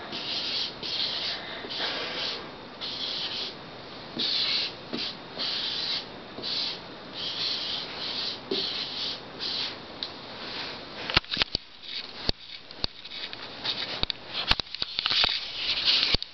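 Chalkboard eraser scrubbed back and forth across a chalkboard: rhythmic hissing strokes, about two a second. Several sharp clicks come in the last few seconds.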